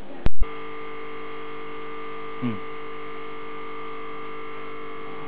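A sharp click just after the start, then a steady electrical hum-like buzz with several fixed pitches. A brief falling voice sound is heard about two and a half seconds in.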